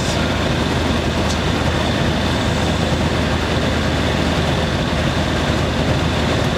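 Light aircraft's piston engine running steadily on the ground with the propeller turning, heard from inside the cockpit.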